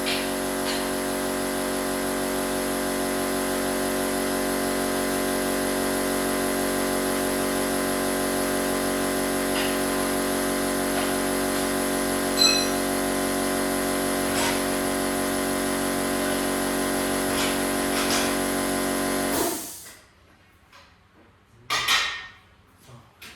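Small electric air compressor running steadily as it fills an added 20-litre tank, then cutting off abruptly near the end. A brief clatter follows.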